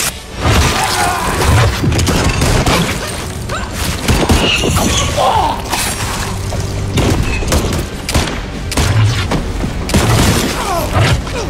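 Action fight-scene sound effects: a dense, rapid run of hits, thuds and crashes, starting abruptly and loud.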